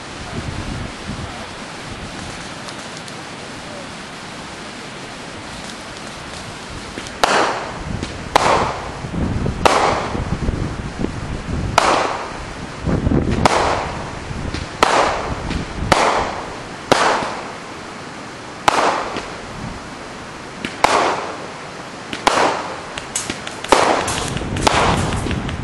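Wind buffeting the microphone, then from about seven seconds in a firework barrage going off shot after shot: around fifteen sharp reports, each trailing off briefly, spaced about one to two seconds apart.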